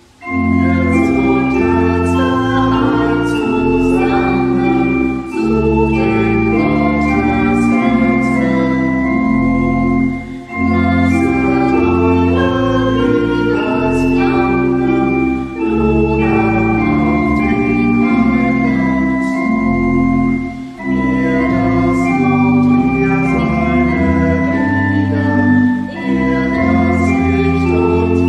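Pipe organ playing a hymn tune in sustained chords, line by line in phrases of about five seconds with brief breaks between them, with a few voices singing the hymn along with it.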